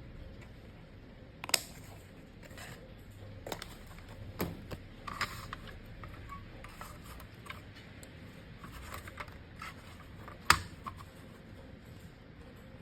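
Scattered light taps and clicks of cardstock pieces being handled and set down on a work surface, the sharpest about a second and a half in and again near the end.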